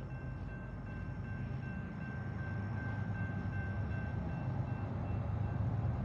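Grade-crossing warning bell ringing steadily over a low rumble that slowly grows louder as a diesel-hauled freight train approaches.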